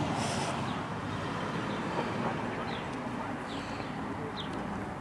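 Steady outdoor background noise with a few faint, short, high chirps in the second half.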